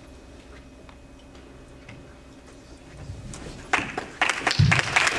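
Quiet room tone with a faint steady hum, then audience applause breaks out about three and a half seconds in and keeps going.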